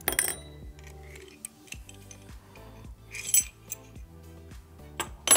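Small metal clinks and clicks as an Allen wrench and screws knock against metal butt-pad parts and a steel magnetic parts tray: a sharp clink right at the start, a cluster about three seconds in, and two more near the end, the last the loudest. Steady background music plays underneath.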